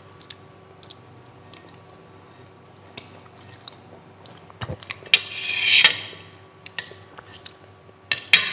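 Close-miked eating of fried flat rice noodles: a spoon and fork click and scrape on a stainless steel platter. About halfway through comes a loud wet slurp lasting about a second as a mouthful goes in.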